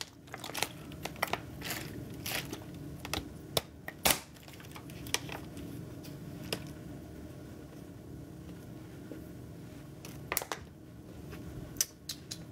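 Scattered light clicks and crinkly rustles over a steady low room hum, busiest in the first few seconds and returning briefly near the end.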